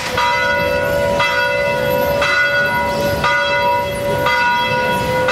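A bell tolling, struck about once a second, each stroke ringing on into the next.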